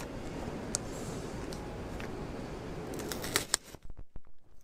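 A strawberry Hi-Chew pack's paper wrapper being handled and its tear strip pulled to open it. Over a low steady hiss, a quick run of sharp crackling ticks comes a little over three seconds in, then scattered small crinkles.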